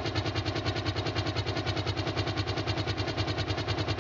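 Kamov Ka-52 attack helicopter in flight, its coaxial rotors beating with an even, fast pulse over the steady run of its turbine engines.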